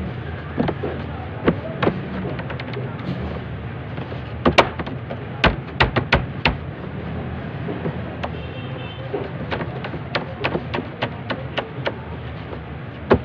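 Hands working and rolling dough on a stainless steel table: scattered sharp taps and knocks, in two clusters, over a steady low hum.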